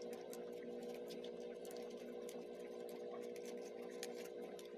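Paperboard puzzle pieces of a 3D model jet being handled and pressed together by hand, making many small clicks and crinkles over a steady background hum.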